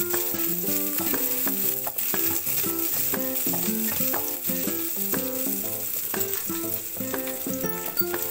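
Onions and garlic sizzling as they fry in oil in a wok, stirred with a spatula, under background music: a quick melody of short notes.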